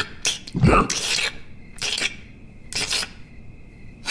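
Cartoon sound effects: a run of short raspy rubbing noises, about five in all, one with a dull thump under it a little before the first second, over a faint steady high tone.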